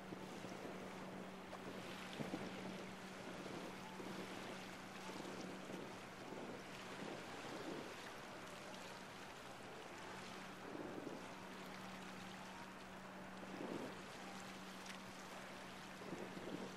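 Distant fireworks going off: faint dull booms every few seconds over wind on the microphone and a steady low hum.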